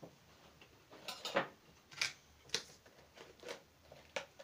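Metal tweezers poking and scraping in a plastic cup of wax-moth culture, then the cup and its plastic lid handled: a scattered series of short clicks and scrapes, about six in all.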